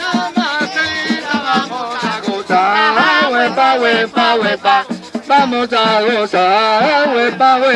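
Singing over hand-beaten frame drums (panderos) and a rattling maraca, in a Puerto Rican plena style of street music.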